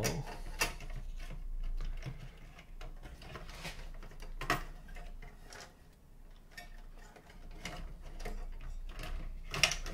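Sony CMT-CP33MD's cassette deck mechanism being worked by hand into its brackets in the metal chassis: scattered plastic-and-metal clicks and scrapes. The sharpest clicks come about half a second in, about four and a half seconds in, and near the end.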